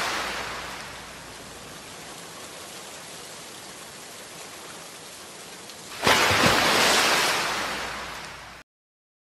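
Intro sound effect of rain-like hiss: it fades to a steady lower level, then about six seconds in a sudden loud rush of noise with a low boom swells and fades before cutting off abruptly into silence.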